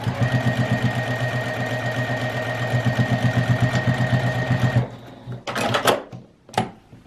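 Electric domestic sewing machine stitching a seam at a steady speed with a fast, even needle rhythm for nearly five seconds, then stopping. A few short scraping noises and a sharp click follow as the machine and fabric are handled.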